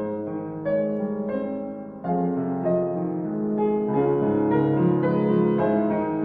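Solo piano playing a slow, gentle piece, with chords that change about every second or so.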